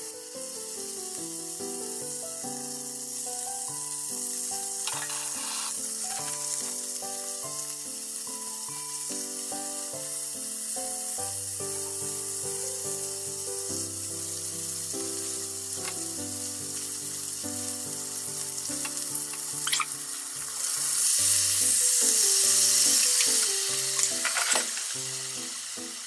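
Pork belly slices sizzling in hot oil in a small square tamagoyaki pan, with a few light utensil clicks. About 21 seconds in, the sizzle grows much louder for a few seconds as the soy-sauce seasoning goes into the hot pan. Background music plays throughout.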